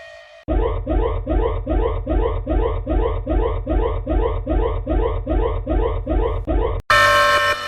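Electronic emergency-alert alarm tone: a fast whoop of short rising sweeps, about two and a half a second. It begins about half a second in and cuts off suddenly near the end, where a different alarm of steady held tones starts.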